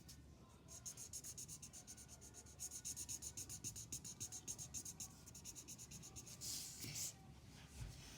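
Pen or marker colouring in on paper, quick back-and-forth scratching strokes at roughly seven a second, with a longer rubbing stroke near the end.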